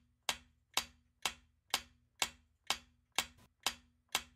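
Countdown timer's ticking sound effect: sharp, evenly spaced clock-like ticks about two a second, nine in all.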